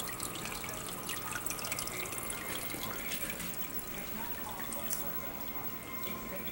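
Aquarium water trickling and dripping steadily, with many small splashes.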